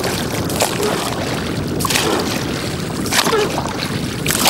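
Wooden paddle of a dugout pirogue stroking through water, a splash about every second and a quarter over a steady wash of moving water.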